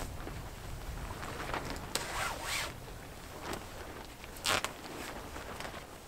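Tarp fabric rustling and scraping in several short bursts as it is pulled and adjusted on a wooden pole, the loudest about four and a half seconds in, over a low wind rumble on the microphone.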